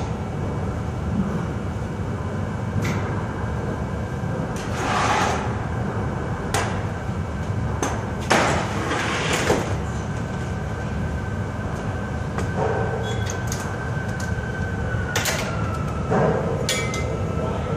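Clanks and knocks of heavy forklift parts being handled during dismantling, over a steady low machinery hum. About twelve seconds in, a thin steady whine sets in and drops slightly in pitch near the end.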